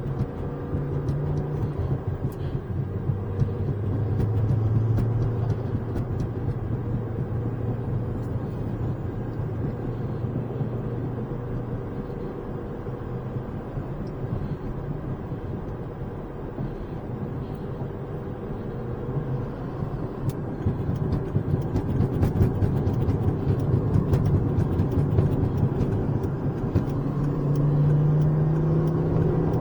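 Volvo C30's turbocharged engine and road noise while driving, the engine note rising and falling as the car speeds up and eases off. The car has a boost leak and barely makes 5 pounds of boost.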